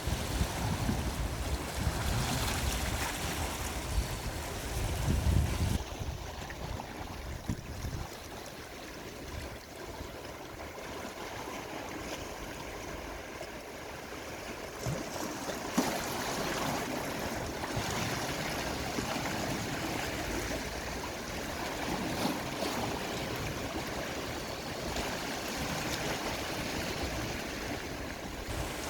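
Gentle sea waves washing against the shore, a steady rushing wash of water, with some low rumble in the first several seconds.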